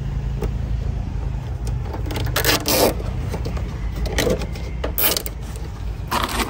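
Nylon cable ties being pulled tight around a wiring harness: four short ratcheting zips, the longest about two seconds in, over a steady low rumble.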